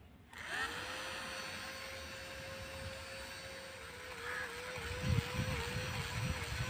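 Small DC-motor fan switched on: its whine rises quickly and settles into a steady hum with an airy hiss. In the second half the pitch dips again and again, and low thumps come in.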